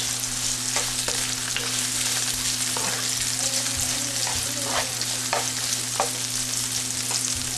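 Chopped onion sizzling in hot oil in a pan as it is sautéed toward golden, with a steady hiss and the scattered clicks and scrapes of a spatula stirring it.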